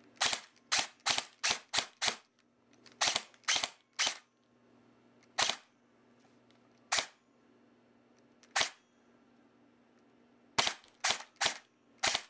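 Valken battle rifle airsoft electric gun, fitted with an AMP high-torque motor and an 11.1 V LiPo battery, firing single semi-auto shots. There is a quick string of six, then three, then three spaced a second or more apart, and another quick string near the end.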